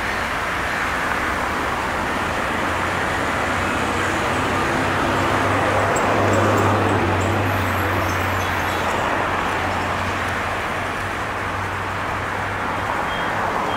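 Steady street traffic of cars and auto-rickshaws driving past. A low engine hum swells as a vehicle passes close about six seconds in, then eases off.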